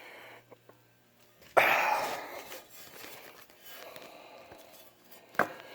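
Handling noise as a boat propeller is turned over and set back down on the work surface: a sudden scraping knock about one and a half seconds in that trails off over a second, then small shuffling noises and a short sharp click near the end.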